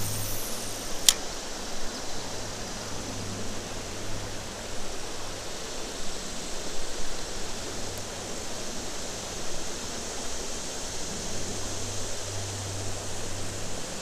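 Steady rush of flowing river water, with a single sharp click about a second in.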